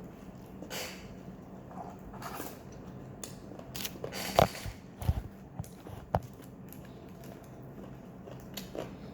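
Eating sounds at a table: chewing, with scattered small clicks and knocks of food, packaging and utensils. There is a sharper click a little over four seconds in and a dull thump about a second later.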